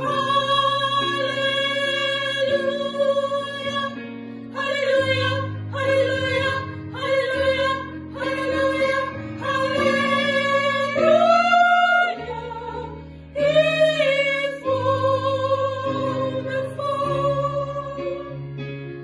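Gospel singing: a solo female voice singing held, vibrato-laden phrases over a guitar and bass accompaniment.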